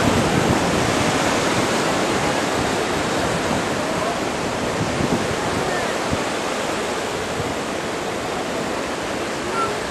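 Steady rushing of ocean surf washing against the rocks below the cliff, with faint distant voices now and then.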